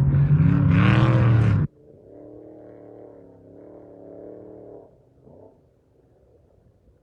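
Off-road race vehicle engine accelerating hard and loud, its pitch climbing, cut off abruptly after under two seconds. A quieter, more distant race engine then runs for about three seconds.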